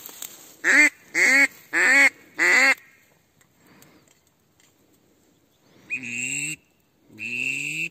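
Mouth-blown duck call sounding a run of four quick, loud quacks, each falling in pitch. After a few seconds' pause it gives two longer, buzzy notes that rise in pitch near the end.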